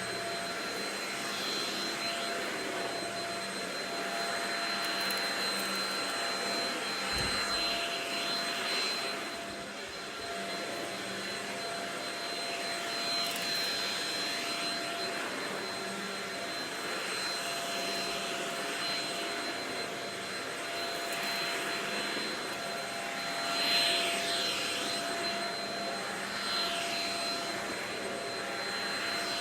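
Shark Rocket vacuum cleaner running steadily with a high motor whine, its sound swelling briefly every few seconds as it is pushed back and forth.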